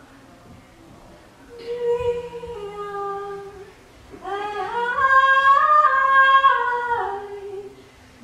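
A woman singing a cappella in long held notes. After a quiet first second or so she holds one note, then rises into a higher phrase that she sustains through the middle, and falls back and stops near the end.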